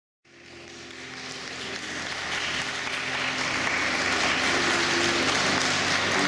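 Crowd applauding, fading in over the first few seconds, with music faintly underneath that grows louder near the end.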